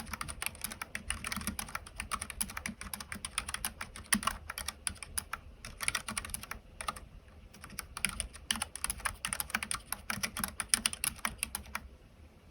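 Typing on a Keychron K3 low-profile keyboard with Keychron low-profile optical White linear switches (30 g): a fast, steady run of key clicks that thins briefly about seven seconds in and stops shortly before the end.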